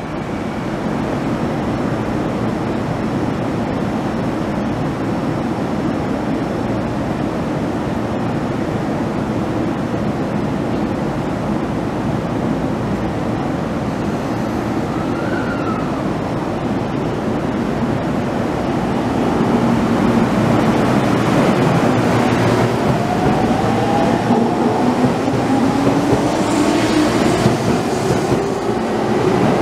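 JR East E231 series 800-subseries electric commuter train pulling away from the platform. A steady noise of the train standing gives way, about two-thirds of the way through, to the VVVF inverter and traction motors whining in several pitches that rise together as the train gathers speed, with the running noise growing louder.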